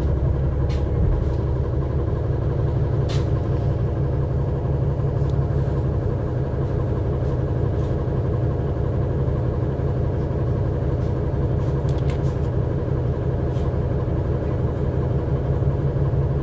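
NEFAZ 5299 city bus's engine running steadily, a low drone heard from inside the passenger cabin, with a few light clicks and rattles.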